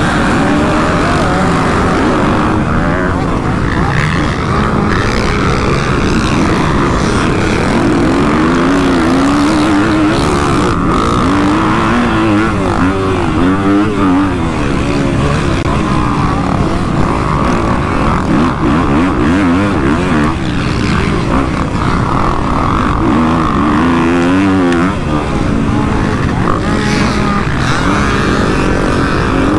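A 250cc motocross bike's engine racing hard, revving up and down through the gears, heard from the rider's onboard GoPro, with other dirt bikes racing close by.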